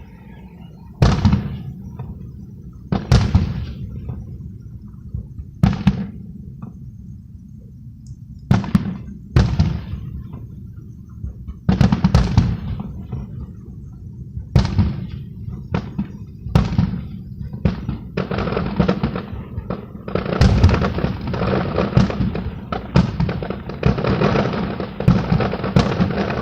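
Fireworks show heard from a distance: aerial shells bursting with dull booms every second or two, then a rapid, dense run of bangs and crackle in the last third, as in a finale barrage.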